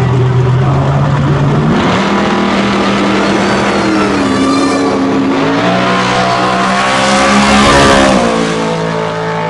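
Drag-racing Ford pickup trucks launching off the start line and accelerating hard down the strip, the engines revving high with pitch drops at the gear changes. The sound swells to its loudest as a truck passes close by near the end.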